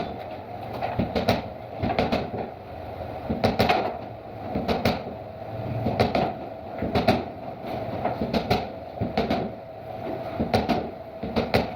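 Irregular knocks and clatters of wooden pieces being handled and set down, over a steady hum.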